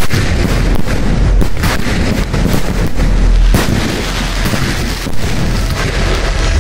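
Aerial fireworks bursting in a dense barrage: many overlapping booms and bangs with no let-up.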